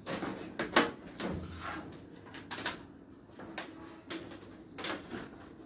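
A string of irregular light knocks and clatters, about seven or eight in a few seconds, from handling and moving about among washing machines.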